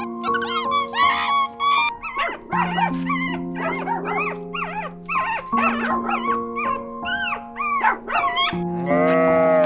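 A small dog whimpering and yipping in many short, high cries that rise and fall, over background music with long held notes. Near the end a sheep bleats.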